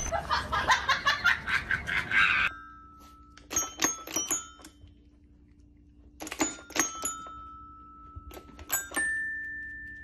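Background music for the first couple of seconds, then a small dog pawing a toy xylophone: three uneven clusters of quick ringing metal notes, the last leaving a single note ringing on.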